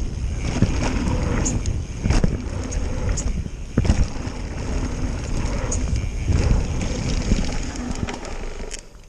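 Mountain bike descending a dirt trail at speed: wind buffeting the microphone and tyres rumbling over the ground, with sharp knocks and rattles from the bike over bumps. It gets quieter near the end as the bike slows.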